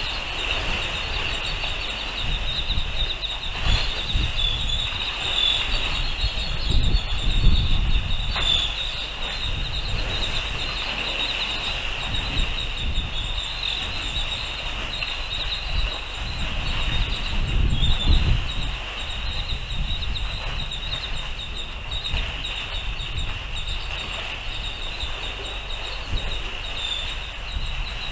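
Wind buffeting an outdoor microphone in gusts, with stronger rumbling swells about a third of the way in and again past the middle. A steady high-pitched whine runs underneath.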